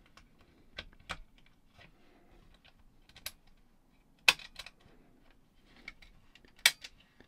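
Scattered small clicks and taps of an opened personal cassette player's plastic case and circuit board being handled, with a power plug pushed into its socket. The two loudest clicks come about four seconds in and near the end.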